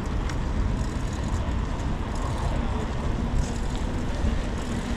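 Steady low rumble of street traffic, with a faint hum coming in about halfway through.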